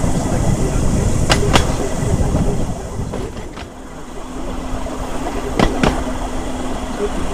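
A small rail cruising cart rolling along the track: a steady rumble of steel wheels on the rails, with a pair of sharp clicks each time its two axles cross a rail joint, three times.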